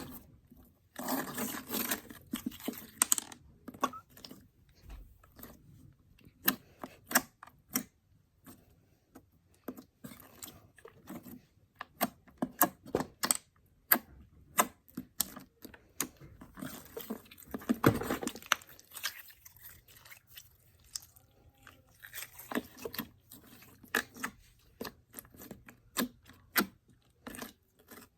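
Slime being squeezed and played with by hand, making irregular sticky pops and crackles, with two denser stretches of squelching, one near the start and one past the middle.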